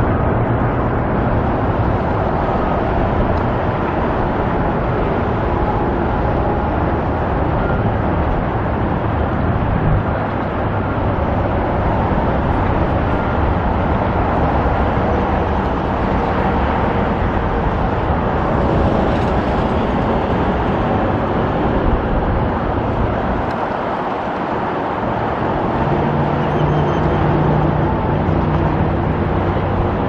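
Steady road traffic noise from vehicles passing on a busy road, with an engine's low hum rising briefly near the end.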